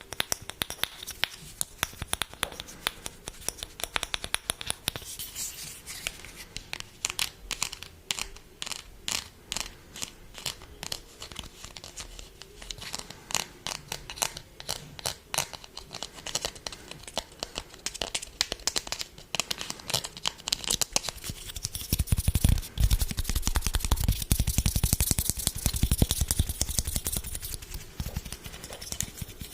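Close-miked ASMR trigger sounds: a long run of quick, sharp clicks and taps. About twenty-two seconds in, this gives way to louder, denser crinkling and crackling.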